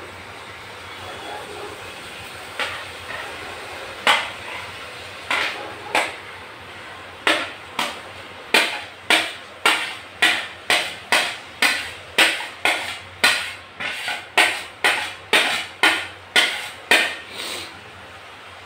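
A metal spoon knocking against a plate and the pot rim as chopped tomatoes are scraped off into the pot. There are a few scattered clinks, then about two sharp clinks a second for some nine seconds, over a steady background noise.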